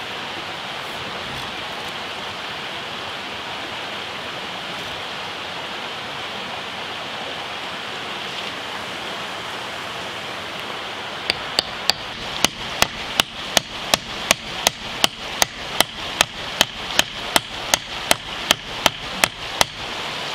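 A hammer driving a wooden wedge, cut from a 4x4, tight into a gap between concrete blocks, to brace a cracked block wall. The blows start about halfway through and come quickly and evenly, two to three a second, more than twenty in all, over the steady rush of a nearby creek.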